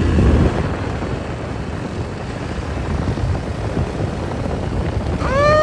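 Suzuki LT-Z400 quad's single-cylinder four-stroke engine running steadily under throttle as the rider holds a wheelie. Near the end, a high voice calls out briefly, rising then falling in pitch.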